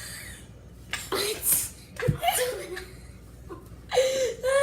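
Children laughing in short breathy bursts, with a drawn-out high-pitched squeal of a voice near the end.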